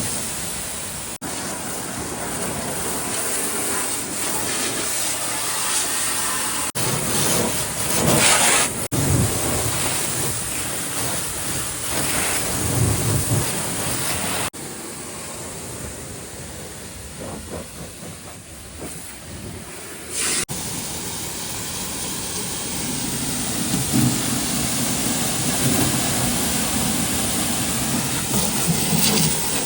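Water jet spraying onto an excavator's steel body, a steady hiss that changes abruptly several times.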